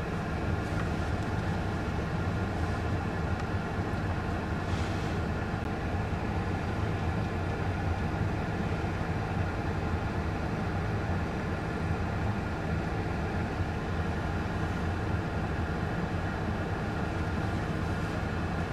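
A vehicle engine idling steadily, an even hum that doesn't change.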